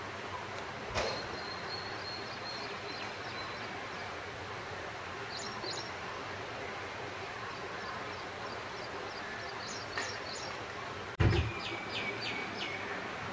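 Small birds chirping in short, quick runs of high notes over a faint steady high whine. About eleven seconds in, one loud bump, as of something knocking the microphone.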